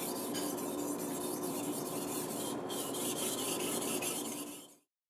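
A knife blade being stroked back and forth on a 1000 grit whetstone: a steady gritty scraping that cuts off suddenly near the end.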